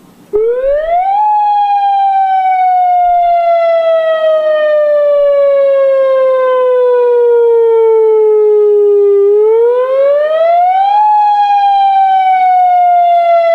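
New warning siren being tested, loud, cutting in suddenly about half a second in. Its pitch rises quickly, then falls slowly over about eight seconds, rises quickly again and starts another slow fall.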